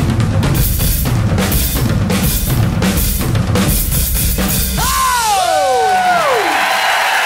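Several drum kits are played together in a dense, loud rhythm of bass drum, snare and cymbals, stopping about four and a half seconds in. Falling whoops of cheering follow, and applause starts near the end.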